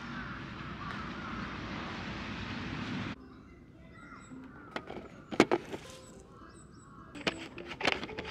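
Steady outdoor noise for about three seconds, then it cuts to a quieter stretch where a guitar is being practised nearby, single notes picked one at a time, with several sharp knocks from the camera being handled.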